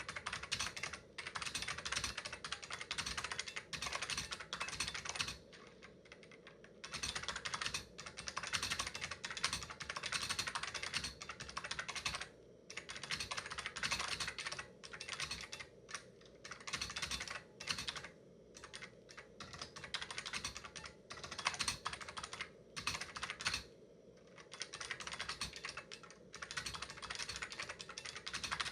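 Typing on the keyboard of an Olivetti Praxis 35 electronic typewriter, which has Olivetti or Alps snap-action key switches. Rapid runs of key clicks go on for a few seconds at a time, with short pauses between them.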